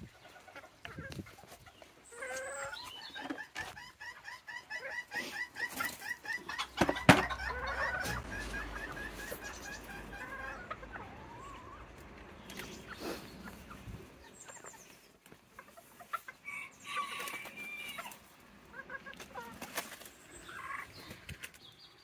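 Serama bantam chickens clucking: a long run of rapid, evenly repeated clucks lasting several seconds near the start, then shorter bursts of calls later on. About seven seconds in there is one sharp knock, the loudest sound.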